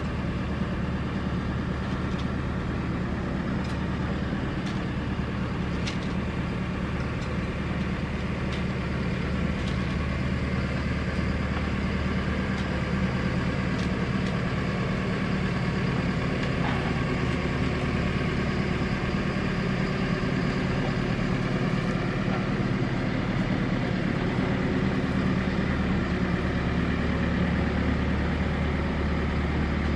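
An engine idling steadily, a low even hum that holds the same pitch and level throughout, with a few faint ticks in the first several seconds.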